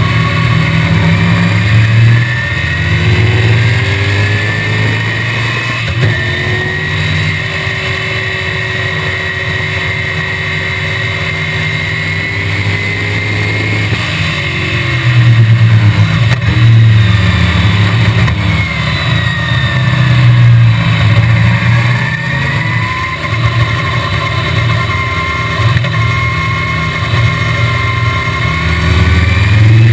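Small-block Chevrolet V8 of a 1965 BTM Cheetah roadster running at racing speed under full load, its pitch climbing through the revs and holding, several times over. The loud engine note is heard from the open cockpit with rushing noise behind it.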